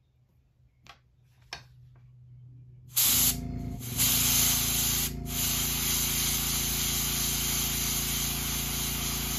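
Airbrush spraying paint to lay a shad dot on a crankbait: a couple of light clicks, then a steady hiss of air and paint starts about three seconds in, with a low steady hum beneath it and brief breaks in the spray.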